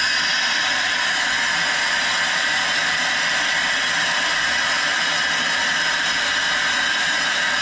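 Hyperbaric diving chamber venting air: a loud, steady rush of air that starts abruptly and holds even. The chamber is being let down in pressure to bring the divers up toward a shallower stop.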